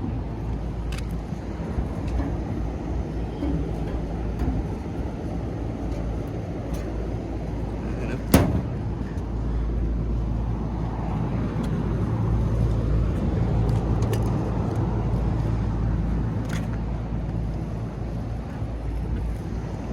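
Steady low outdoor rumble with one sharp knock about eight seconds in and a few faint clicks.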